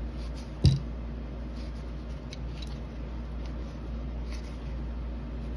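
1990 Topps baseball cards being thumbed through by hand, with faint slides and clicks of card stock over a steady low hum. A single thump comes under a second in.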